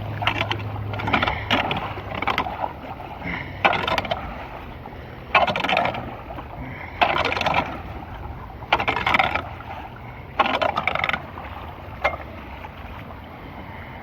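Repeated splashing and scraping strokes in shallow floodwater at a clogged storm drain, about one every one and a half to two seconds, as debris is cleared to let the water drain. A low vehicle engine hum sits under the start and fades within the first second or so.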